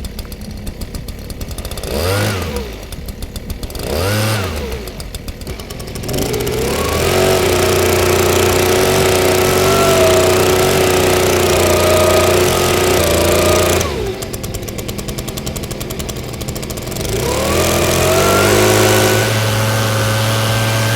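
Stihl petrol leaf blower engine idling, blipped twice briefly, then throttled up to full speed and held for about eight seconds. It drops back to idle, then revs up again to a steady high speed near the end.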